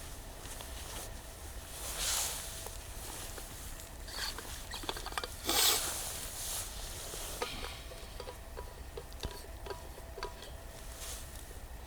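Irregular rustling with light clicks and taps, typical of gear and packaging being handled, the loudest rustle about five and a half seconds in.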